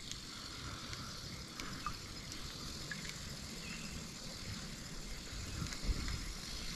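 Faint outdoor background on the water: a low, uneven rumble with a steady high hiss and a few light clicks.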